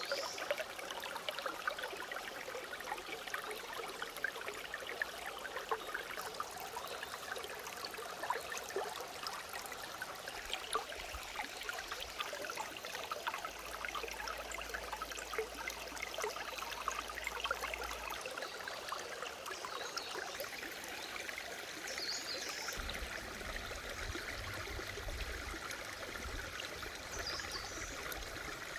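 Clear mountain stream running steadily over rocks, a constant babbling rush of water. A few brief bird chirps are heard over it, about two-thirds of the way in and again near the end.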